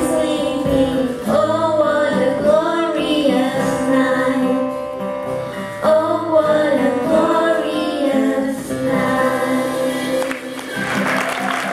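Live band ending a song: a woman sings the closing phrases over acoustic guitar and keyboard, finishing on a long held chord that dies away about ten seconds in. Audience applause starts near the end.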